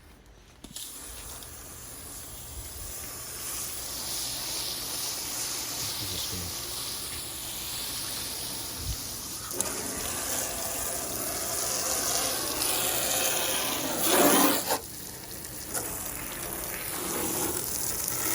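Water spraying in a steady hissing jet onto a car's ceramic-coated paint, rinsing off bird droppings. It starts about a second in and has a brief louder surge near the end.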